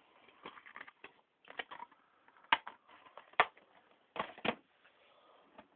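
Plastic DVD cases being handled, giving a scattered run of clicks and clacks with a few sharper knocks in the middle.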